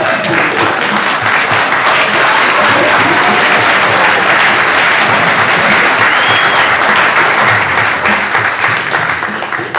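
Audience applauding, loud and sustained, dying away near the end.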